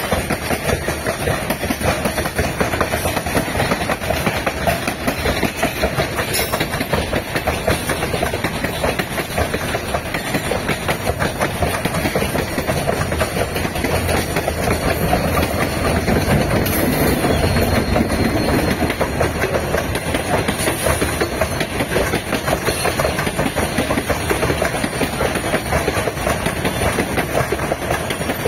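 Loaded freight train of open gondola wagons rolling past on steel rails, a steady noise of wheels on track. It is louder and lower for a few seconds past the middle as a diesel locomotive placed mid-train goes by.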